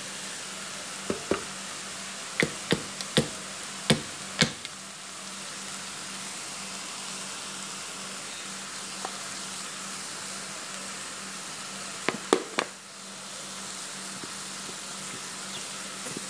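Chopped onions sizzling steadily in hot oil in a frying pan. Sharp knocks come in a quick series from about one to four and a half seconds in, and three more around twelve seconds in.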